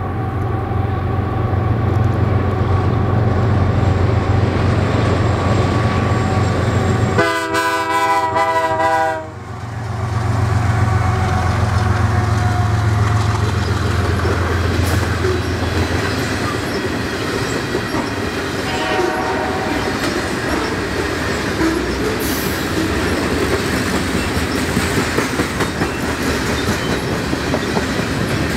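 Canadian Pacific freight train passing: the diesel locomotives' engines run with a heavy low drone, then give way to the steady rolling and clicking of the cars over the rails. The locomotive horn sounds one chord for about two seconds a quarter of the way in, and gives a short, softer second toot about two-thirds through.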